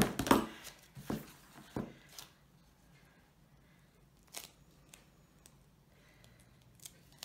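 Scissors snipping through a strip of adhesive tape, followed by a few sharp clicks and light knocks of scissors, bone folder and a cardboard box being set down and handled on a cutting mat. The clicks cluster in the first two seconds, with only a few scattered ones after that.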